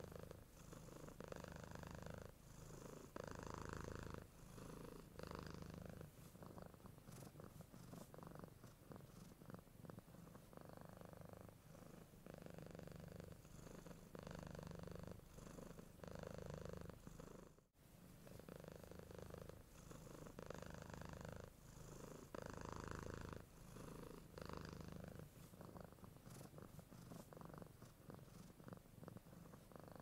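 Domestic cat purring softly and continuously, the purr alternating in tone with each breath in and out, about every second. It breaks off for an instant a little past halfway.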